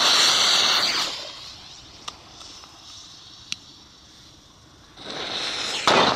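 Firecracker fuse hissing and spitting sparks as soon as it is lit, loud for about a second and then dying away, with a couple of faint sharp pops a few seconds later. Near the end a louder rush of noise builds to one sharp peak.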